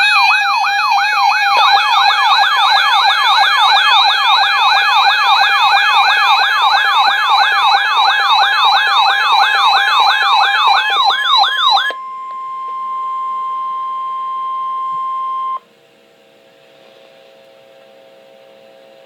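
Weather radio alert siren: a loud, rapid warbling wail rising and falling about three times a second for about twelve seconds. It cuts to a single steady high tone, the weather radio warning alarm tone, which stops after about three and a half seconds and leaves a faint steady hum.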